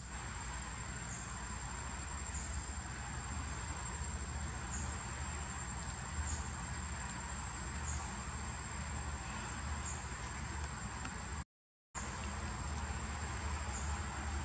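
Steady high-pitched drone of insects in the surrounding trees, dipping briefly now and then, over a low rumble. The sound cuts out for about half a second near the end.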